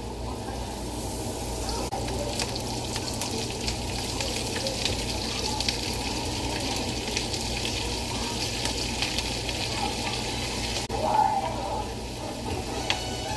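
Food sizzling and crackling in a hot pan, a steady hiss with many small pops throughout.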